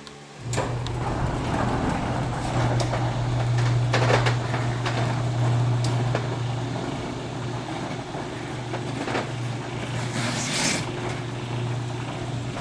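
Electric garage door opener motor starting about half a second in and running with a steady hum as it raises two roll-up doors, with scattered clanks and rattles from the doors as they roll up.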